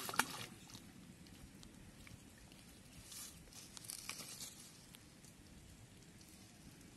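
Dry plant litter crackling and rustling on a pond bank as a person shifts and stands up on it: one sharp crackle just after the start, then a few short rustling bursts about three to four seconds in.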